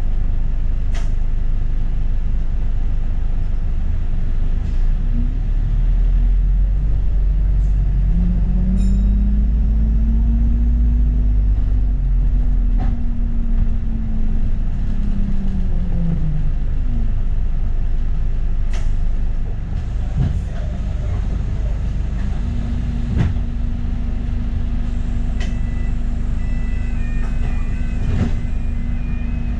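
London bus in motion: a constant low rumble of engine and road, with a drive whine that rises in pitch and then falls away about a third of the way through as the bus speeds up and slows, then a steady hum. A few sharp knocks and rattles come through.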